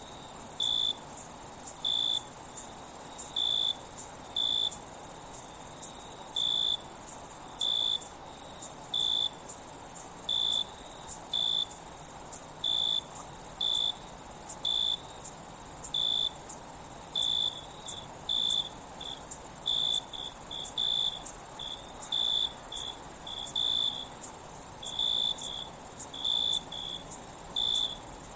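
Night insect chorus: a steady, very high-pitched trill runs under a nearer cricket chirping in short pulses, roughly once a second and a little faster in the second half.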